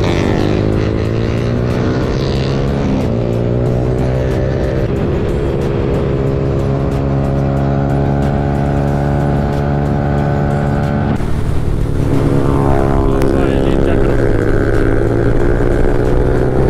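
Sport motorcycle engine running under way, its exhaust note holding steady for several seconds. About eleven seconds in the throttle shuts briefly, then the engine revs up rising in pitch and runs louder.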